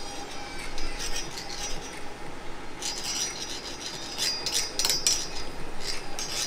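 Summit Racing professional flaring tool's T-handle feed screw being turned by hand, forming a flare on the end of a 3/8-inch hard fuel line: metal-on-metal squeaking and scraping in short, uneven strokes, with a sharp click about five seconds in.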